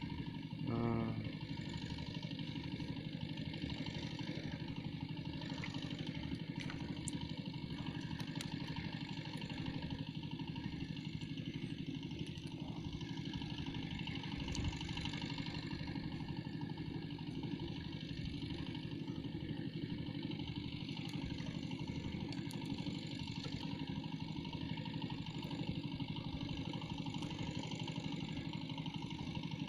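An engine running steadily at an even idle, a constant hum that does not change speed.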